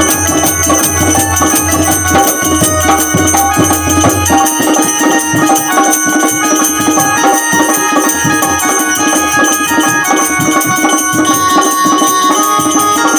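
Instrumental passage of devotional bhajan music: sustained melody notes over hand-drum beats and jingling percussion. A low bass note drops out about four seconds in.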